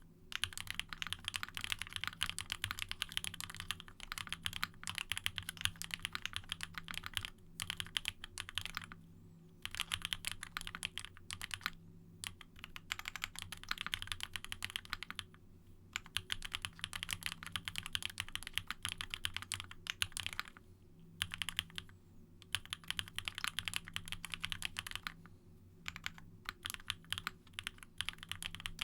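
Fast continuous typing on a custom 60% mechanical keyboard with an aluminium plate, lubed Durock POM linear switches and GMK ABS double-shot keycaps, a dense stream of keystroke clacks broken by brief pauses every few seconds.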